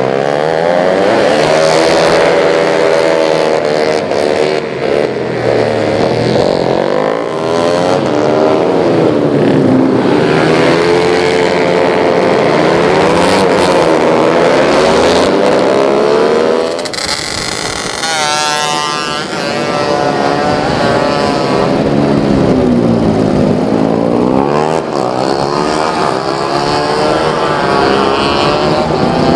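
Several race-tuned small automatic scooters running at high revs, their overlapping engine notes rising and falling as they accelerate and back off. The sound drops briefly a little past halfway.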